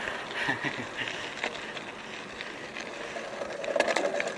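Mountain bike's tyres rolling over loose gravel and dirt, a steady crunching hiss scattered with small clicks and ticks, louder briefly near the end. Heard through a GoPro's foam-covered microphone.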